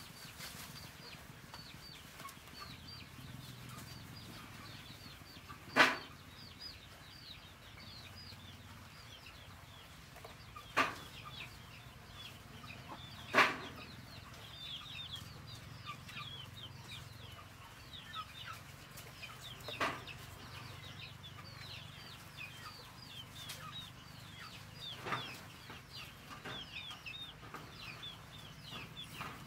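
Birds chirping continuously in quick short calls, while five sharp knocks sound as the trap is handled, the loudest about six and thirteen seconds in.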